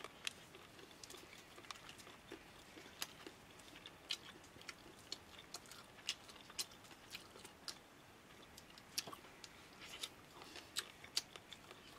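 A man chewing boiled maize close to the microphone: faint, irregular crunching clicks as he bites and chews.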